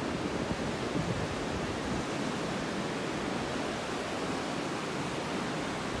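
Steady rushing hiss of ocean surf, with light wind on the microphone.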